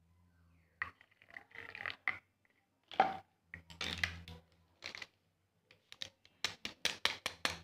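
Spoon scraping and clinking in a cup of whipped dalgona coffee mixture: irregular scrapes at first, then a quick, even run of clicks against the cup, about five a second, near the end.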